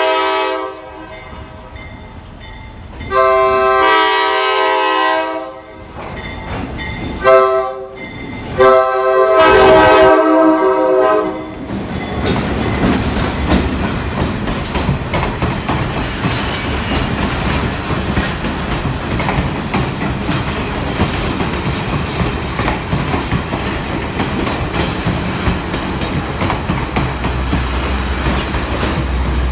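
Nathan K5LA five-chime air horn on an FL9 locomotive sounding the grade-crossing signal. The end of one long blast is followed by a second long blast, a short one and a final long one. The train then passes close by, with passenger car wheels clicking steadily over the rail joints and a low rumble joining near the end.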